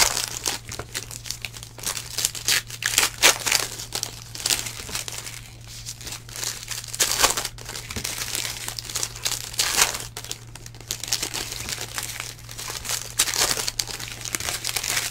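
Foil wrappers of 2019 Donruss Elite Football card packs crinkling and crumpling in hands as the packs are opened, in irregular rustling crackles, with a steady low hum underneath.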